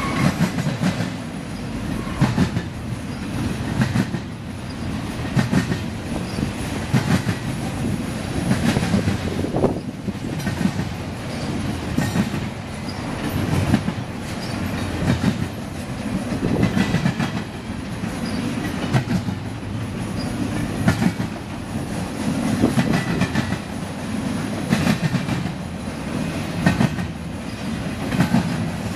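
Container-carrying well cars of an intermodal freight train rolling past, the wheels clicking over the rail joints in a regular clickety-clack. The sound swells every second or two as each set of wheels goes by, over a steady low rumble.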